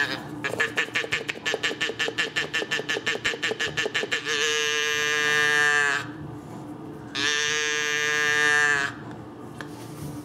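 Electronic sound effects from a small battery toy: a fast run of short beeping pulses, about eight a second, for some four seconds. Then two long buzzy tones, each about one and a half seconds, that dip in pitch as they stop.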